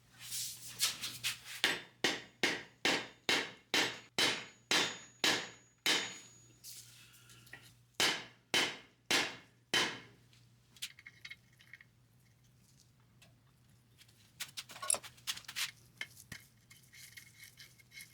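Mallet blows hammering the lower trailing arm of a VW Beetle link-pin front beam flush onto its torsion bar: about two sharp blows a second, a run of about a dozen, a pause, then four more. Lighter metallic clinks and rattles follow near the end as bolts are handled.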